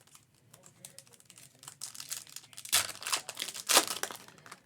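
Foil trading-card pack wrapper crinkling and being torn open, with the rustling growing louder and two loud crackling bursts near the end.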